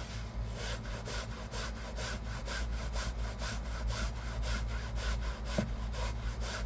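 Hand brush scrubbed back and forth over fabric car-seat upholstery in a steady rhythm of about four strokes a second.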